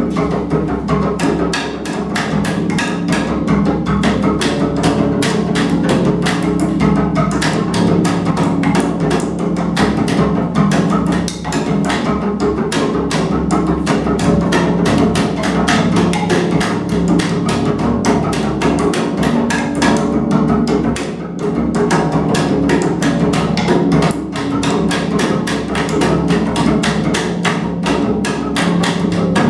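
Acoustic double bass bowed solo: a steady low drone under a fast, dense stream of percussive, clicking bow strokes.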